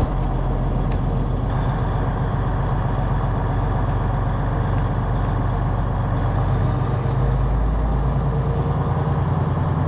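Semi truck's diesel engine running steadily as the truck drives slowly, a low drone that grows stronger about seven seconds in.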